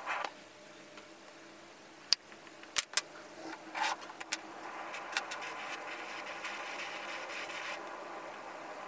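Workshop handwork on a knife: a few sharp knocks and clicks of tools being handled, then a steady rubbing noise for a couple of seconds in the second half.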